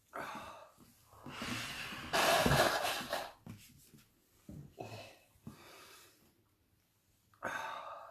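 A man breathing hard through the burn of a Carolina Reaper pepper: a series of about six loud, ragged breaths and blown-out exhales, the loudest two to three seconds in.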